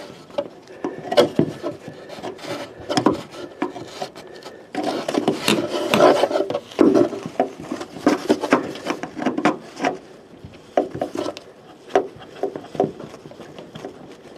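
Rubber rear-window gasket being worked over the body's pinch weld by hand, with a pick tool and a pull cord. Irregular rubbing and scraping mixed with small knocks, busiest about five to seven seconds in.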